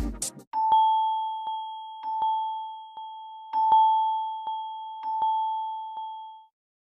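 Phone ringtone: a single bell-like chime tone held for about six seconds and slowly fading away, with soft ticks about every three-quarters of a second. It begins just after a dance-beat ringtone cuts off.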